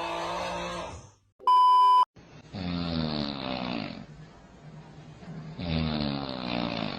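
Person snoring: a pitched, buzzing snore that ends about a second in, then a loud electronic beep lasting about half a second, then two long snores of about a second and a half each with a quieter breath between them.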